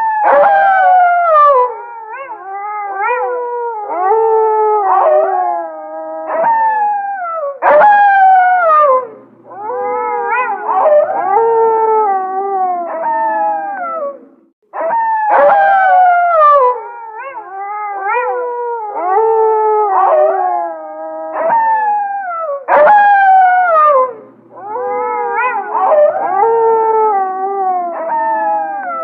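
A pack of gray wolves howling in chorus: several long howls overlap at different pitches, mostly gliding downward. The chorus breaks off briefly about halfway through and the same chorus starts over.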